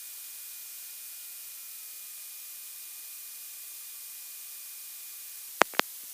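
Steady electronic hiss on the audio line, like static from an aircraft intercom recording feed, with two sharp clicks about five and a half seconds in.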